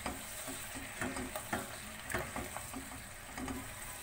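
Spatula stirring sliced potatoes, tomatoes, spices and freshly added yogurt in a pan of hot oil: a steady sizzle with scattered scrapes and knocks of the spatula against the pan.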